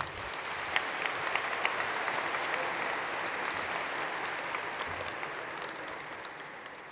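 Audience applauding, a dense patter of clapping with single claps standing out, dying away over the last couple of seconds.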